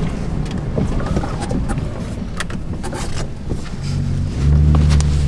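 Pickup truck driving through snow: low rumbling with scattered sharp knocks and clicks, then about four seconds in a steady engine drone comes in louder and holds.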